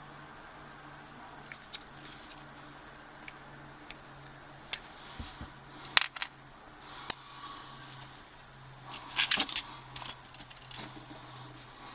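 Small metal clicks and clinks of padlock parts and tools being handled while a circlip is worked off a Yale 850 padlock's core. Scattered single ticks, a sharper click about six seconds in, then a quick run of clinks about nine seconds in, over a faint steady hum.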